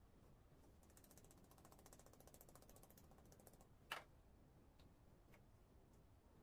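Faint, fast, even clicking as a long thin wooden rolling pin (oklava) works over a stack of floured baklava dough sheets, with one sharp knock just before four seconds in.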